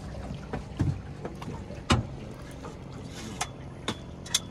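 Outboard motor on an aluminum fishing boat running at a low, steady idle, with a few short sharp knocks and clicks on the boat, the loudest about two seconds in.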